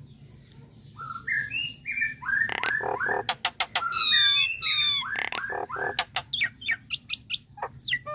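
Common myna singing: a varied run of rising whistled notes, sharp clicks and fast rattling trills, starting about a second in.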